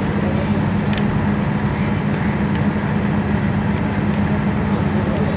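Steady background rumble with a constant low hum, broken by a few short sharp knocks, the clearest about a second in.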